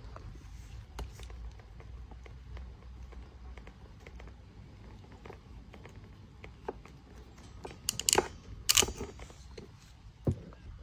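Hand ferrule (bootlace) crimping tool being handled: scattered light clicks, then a cluster of sharp, louder metal-and-plastic clacks about eight seconds in and one more near the end.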